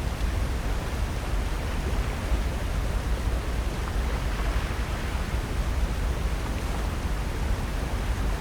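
Steady shoreline ambience: an even rush of wind and ocean surf, heaviest in the low end, with no distinct events.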